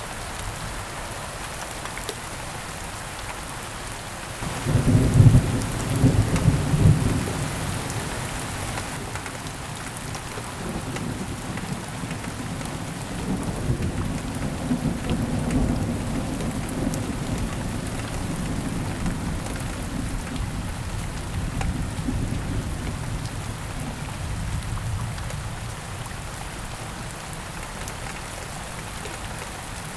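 Steady heavy rain with a thunderclap about four seconds in, followed by long rolling rumbles of thunder that die away near the end.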